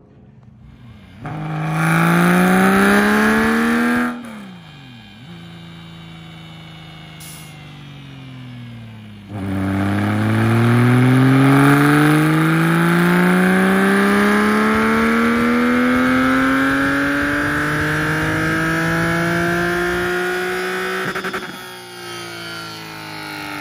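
Porsche Boxster race car's engine on a chassis dynamometer during a dyno run: a short rev climbs about a second in and drops away after about three seconds. From about nine seconds in comes a long full-throttle pull, the engine note rising steadily for some twelve seconds until the throttle closes and the revs fall.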